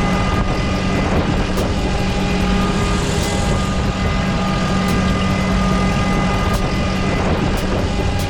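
Pumpkin harvester running steadily: an even engine drone with a quick, irregular rattle of clicks over it.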